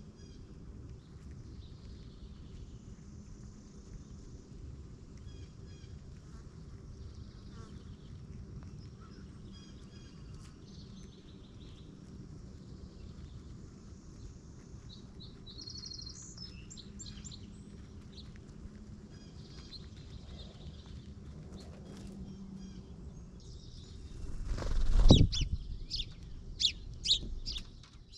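Small birds chirping at a bird feeder: faint short calls on and off over a steady low rumble. Near the end a sudden loud rumble lasting about a second, then a quick run of loud, sharp chirps close by.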